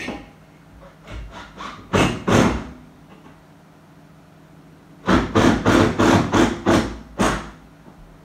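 Sharp knocks at a radiator wall bracket as a screw is set into its wall plug: a few light taps about a second in, two harder knocks about two seconds in, then a quick run of about eight knocks, some four a second, from about five seconds in.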